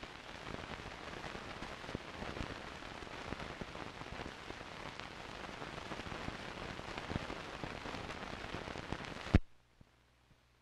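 Crackle and hiss of a worn old film soundtrack running with no speech or music, with scattered pops. It cuts off with a sharp click about nine seconds in, then near silence.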